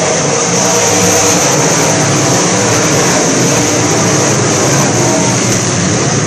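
A pack of dirt-track sport modified race cars racing past at speed, many engines running loud together without a break.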